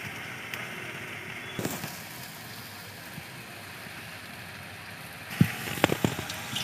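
Green chillies being slit on a boti blade: quiet cutting over a steady hiss, then a few sharp knocks near the end as the hand goes to a steel bowl with a ladle.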